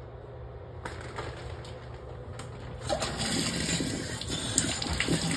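Water running from a bathtub spout into the tub, starting about three seconds in, with light clicks from the faucet handle being spun. The faucet stem is stripped, so the handle keeps turning without stopping.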